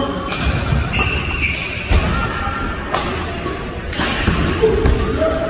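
Badminton rally: racket strings hitting the shuttlecock about once a second, with short high squeaks of court shoes on the wooden floor between the hits.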